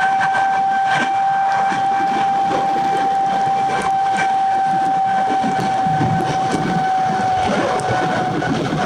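Jet airliner engines running with a steady high-pitched whine over a broad rush of noise, easing slightly near the end.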